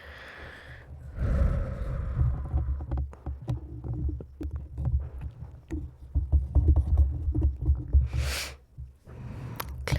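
Close-miked ASMR mouth sounds: many quick wet clicks and smacks over a low rumble, with a short breathy hiss about eight seconds in.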